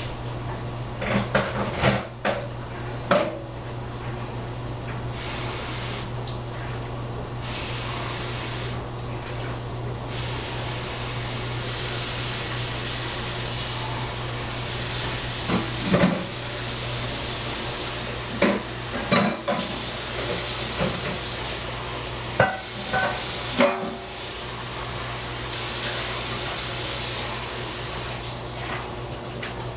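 Metal utensil clanking against a cooking pot in a few scattered clusters, over a steady hiss of food cooking and a low hum.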